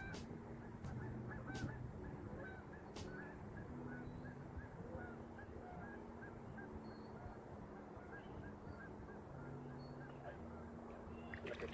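A flock of geese honking, short calls several times a second and never pausing, over a low hum that comes and goes. A few sharp clicks sound in the first three seconds.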